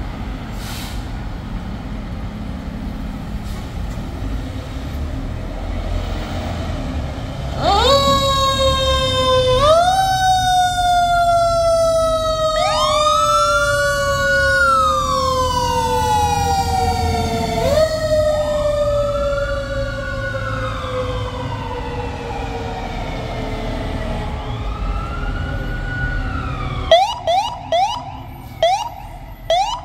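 Fire engines' diesel engines rumble, and about eight seconds in their sirens start. One winds up sharply and slides slowly down, over and over, while another wails up and down. Near the end come several short, sharp horn blasts.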